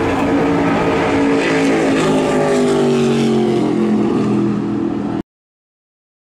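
Stock car's V8 engine running at speed on the track, its pitch falling steadily from about two seconds in as it goes by. The sound cuts off abruptly about five seconds in.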